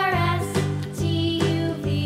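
Background music: a light melodic tune over a steady, regular bass beat.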